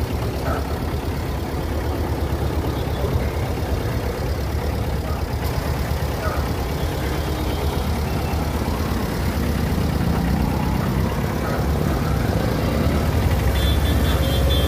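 Vehicle engines idling close by in stopped city traffic, a steady low rumble. A horn starts honking near the end.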